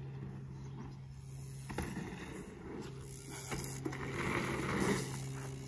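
Mountain bike tyres rolling over a packed-dirt pump track as the rider comes down a roller toward the microphone, building about two seconds in and loudest near the end. A steady low hum runs underneath.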